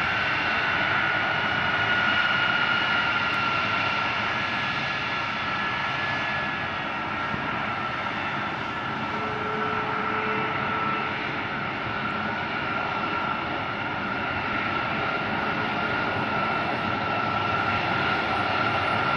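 Jet engines of KC-135 and KC-46 tanker aircraft running on the runway: a steady engine rush with a high whine that drifts slightly lower.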